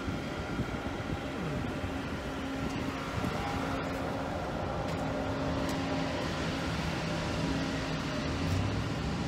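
Steady urban din of street traffic and construction machinery, with an engine hum that comes and goes.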